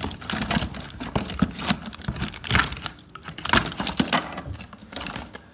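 Irregular clattering and rattling of hard plastic and metal fishing tackle as a hand rummages through a tackle box and lifts out a spinning reel.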